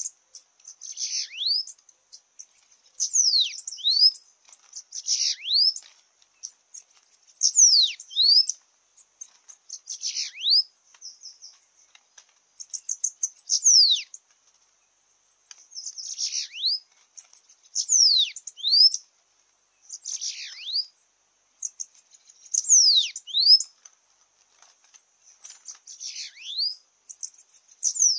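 Bananaquits singing: short, high, thin song phrases, each a quick jumble of notes ending in one or two fast downward-sliding whistles, repeated about every two seconds.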